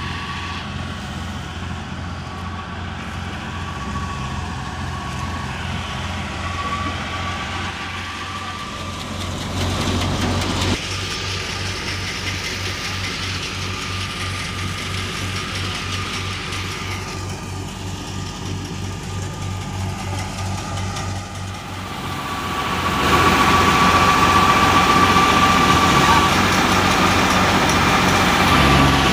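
Massey Ferguson 385 diesel tractor running steadily at work, driving a belt-powered wheat thresher, with a steady high whine over the engine's drone. The sound grows clearly louder about three-quarters of the way through.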